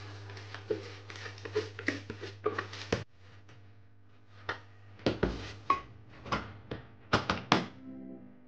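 Wet rice sliding out of a bowl into the stainless steel steamer basket of a rice cooker's inner pot. After that comes a run of sharp knocks and clicks as the pot is set into the cooker and the cooker is handled.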